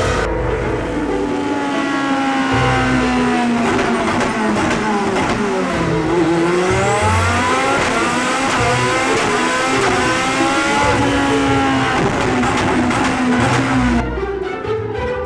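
Race car engine revving hard, its pitch climbing and dropping again and again as it accelerates and shifts, with a sudden change near the end.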